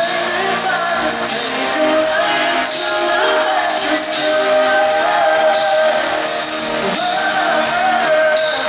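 Live pop band playing, with long, wavering sung notes held over the music, recorded from the audience.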